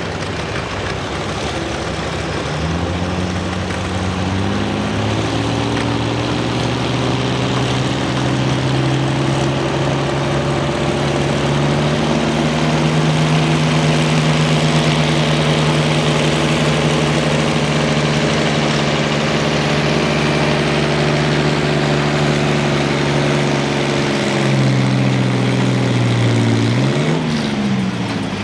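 1962 Farmall 460 tractor's six-cylinder engine working hard under load, pulling a weight-transfer sled. Its pitch rises a few seconds in and holds steady, then drops near the end with a brief dip and rise as the pull winds down.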